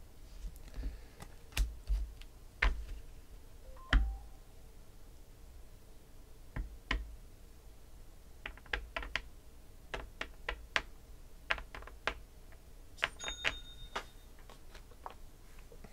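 Trading cards being set down and tapped onto stacks on a tabletop: a run of light, irregular clicks, with a few heavier thumps in the first four seconds.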